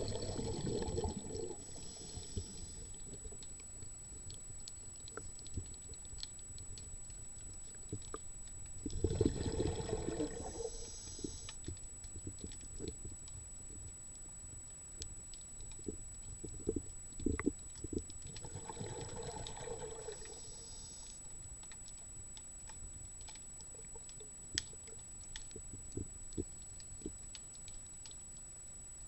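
Underwater recording: a scuba diver's regulator exhalations, bubbling rushes about every ten seconds, three in all, with scattered small clicks and crackles in between.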